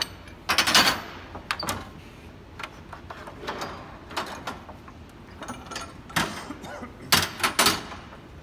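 Steel pipe clamps clanking and knocking against the boards and the clamp rack as they are loosened and moved: a series of separate metallic knocks, loudest about half a second in and again about seven seconds in.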